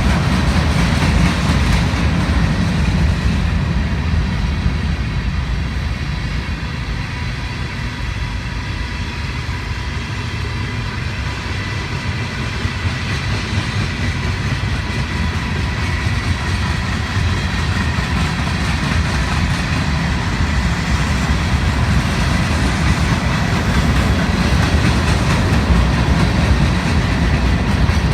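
Union Pacific mixed freight train rolling past, its cars making a steady noise of wheels on rail with faint high steady tones over it. It eases off slightly in the middle and builds again toward the end.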